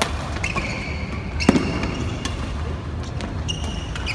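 Badminton rally: sharp racket strikes on the shuttlecock about once a second, the loudest about a second and a half in, with short squeaks of shoes on the court floor.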